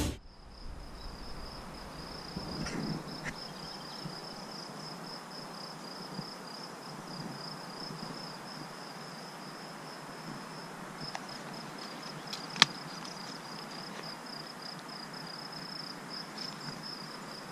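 A cricket trilling steadily in a high, even, finely pulsed chirr, with one sharp click about twelve seconds in.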